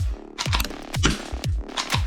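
Electronic dance background music with a steady kick-drum beat about twice a second and bright hi-hats.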